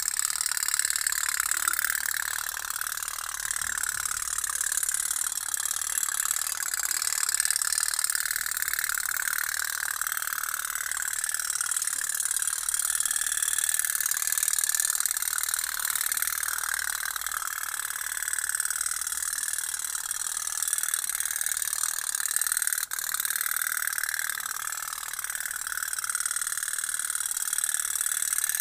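Tin toy pop-pop steam boat running in a tub of water, its little boiler giving a steady, rapid mechanical putt-putt.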